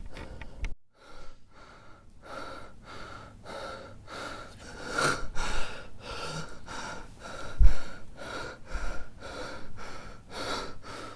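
A person panting heavily and rhythmically, about two quick breaths a second, with a slight whistling note in each breath. A low thump about two-thirds of the way through.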